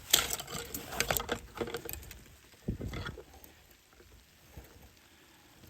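Irregular rustling and crackling clicks for about three seconds, with a thump about three seconds in, then fading to faint outdoor quiet.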